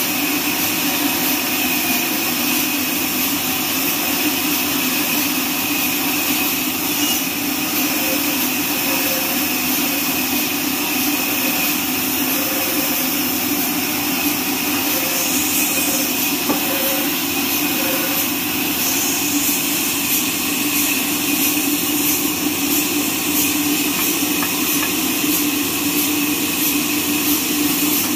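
Horizontal band sawmill running steadily as its band blade cuts lengthwise through a neem log, a constant, unchanging machine noise.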